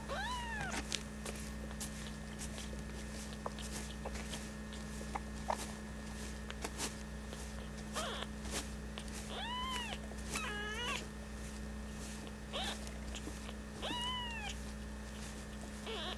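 Newborn kitten, eyes not yet open, mewing: thin, high calls that rise and fall in pitch. One comes right at the start, then a run of calls about halfway through, several close together, and more near the end.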